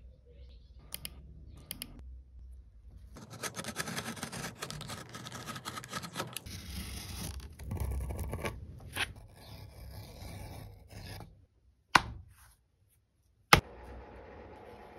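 A blade cutting through leather: a rough, scraping rasp that runs for several seconds. Near the end come two sharp knocks about a second and a half apart.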